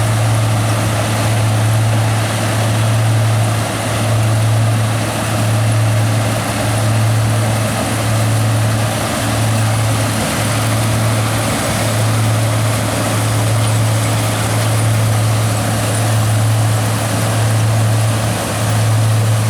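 John Deere 6145R tractor's six-cylinder diesel engine running steadily under load while pulling and driving a Top Air onion harvester, with a strong low hum that dips briefly about once a second over the steady noise of the harvester's running machinery.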